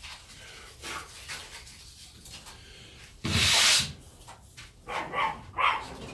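Sandpaper rubbed by hand over the white-painted wooden dog stairs, a light scuff-sanding of the first coat of paint, in faint scratchy strokes. About three seconds in there is a short, loud rush of noise.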